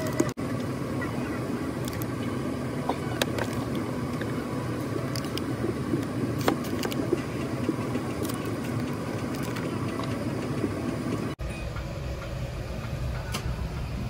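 Steady airliner cabin noise, a low rumble and rush of air. A few light clicks come from small toiletry bottles and an amenity-kit pouch being handled, and after a sudden break about eleven seconds in the low rumble is louder.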